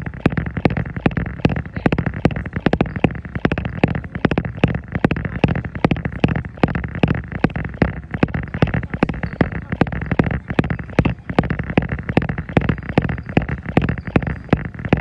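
Jogging footfalls pounding a treadmill belt in a quick, steady rhythm over a continuous low hum.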